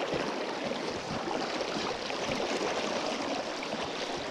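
Steady rush of moving river water around a small boat.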